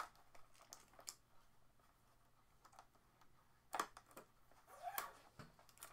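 Faint, scattered clicks and scratches of fingers picking at and peeling blue packing tape off the plastic casing of a new sewing machine. A few light ticks come first, then a quiet stretch, then a cluster of louder scrapes and clicks about four seconds in.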